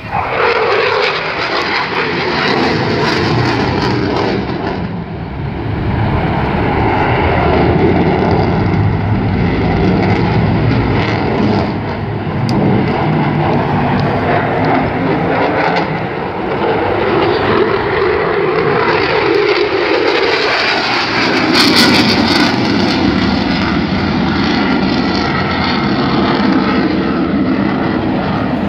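US F-16 fighter jet's engine noise during a low display pass, loud and continuous, its pitch sliding as the jet passes and turns.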